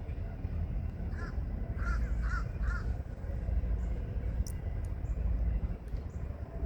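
A crow cawing four times in quick succession, over a steady low rumble.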